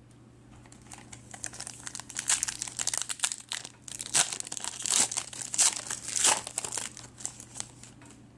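Plastic-foil trading card pack wrapper crinkling and tearing open, a run of crackly rustles that starts about a second in and dies away near the end.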